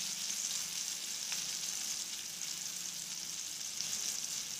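Masala-coated surmai (kingfish) steaks shallow-frying in oil on an iron tawa: a steady sizzle with an occasional faint pop. The fish is fried through on both sides and nearly ready to come off.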